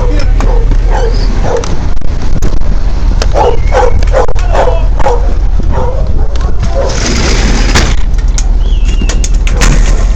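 A dog barking repeatedly, with a quick run of barks near the middle, over the steady low drone of an engine running. A brief hiss comes in about seven seconds in.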